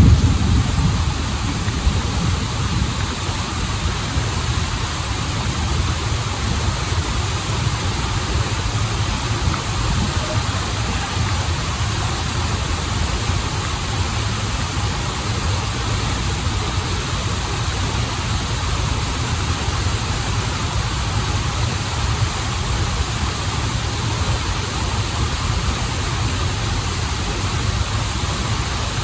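Waterfall and river stream: a steady rush of falling and running water with a deep rumble underneath.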